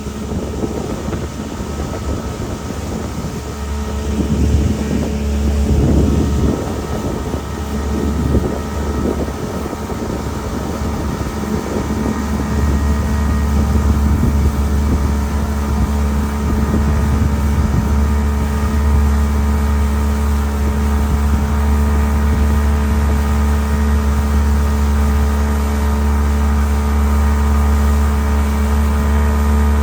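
A motor running steadily at an even speed, with a deep rumble and a steady drone. Wind buffets the microphone in gusts for several seconds early on.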